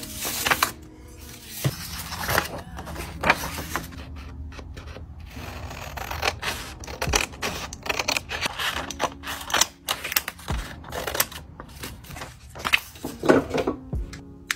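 Glossy magazine paper crackling and scraping in a quick, irregular run as a magazine cutout is handled and prepared for gluing into a journal, over soft background music.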